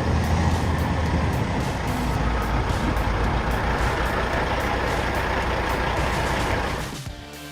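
A heavy vehicle or machine's engine running loud with a deep rumble, cut off abruptly about seven seconds in, where quieter music takes over.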